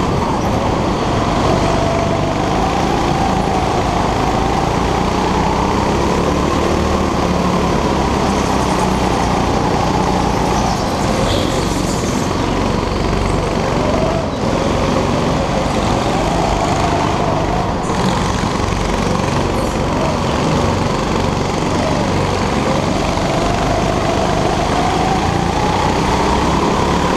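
Go-kart engine running at race pace, its pitch climbing and falling again and again as the kart accelerates out of corners and slows into them.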